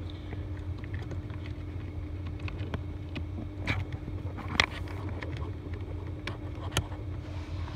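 Handling noise from a multimeter and its test leads being set up for a voltage check: a few scattered small clicks and taps over a steady low hum.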